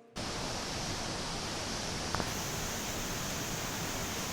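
Steady rushing of a waterfall, Davis Falls, with water pouring down into its gorge. A single brief tick sounds about two seconds in.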